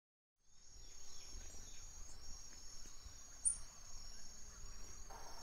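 Faint outdoor nature ambience: a steady high-pitched insect drone with a few scattered bird chirps, one sharper chirp about three and a half seconds in.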